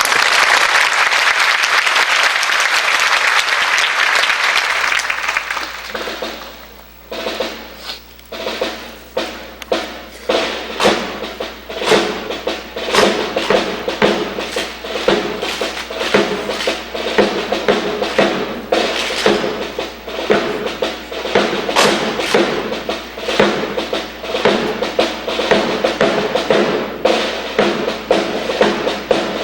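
Audience applauding, dying away about six seconds in; then band music starts, with drums beating a steady marching rhythm under sustained instrument tones.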